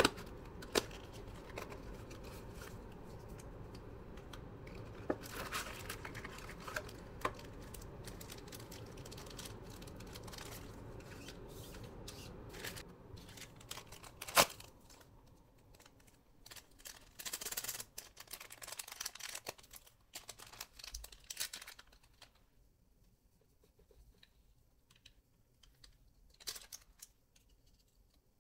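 Light rustling and crinkling with scattered clicks, over a low steady hum that drops away about halfway through; the last few seconds are nearly silent.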